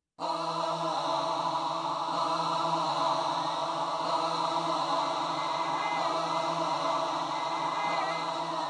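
Opening of a synth-pop song: a held, choir-like synth chord with no drums, a few gliding high tones entering near the end.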